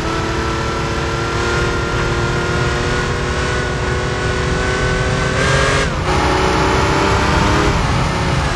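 Air-cooled Porsche 911 (964) flat-six pulling hard, its pitch climbing slowly, then dropping sharply at an upshift about six seconds in and climbing again in the next gear. Wind and road noise run under it.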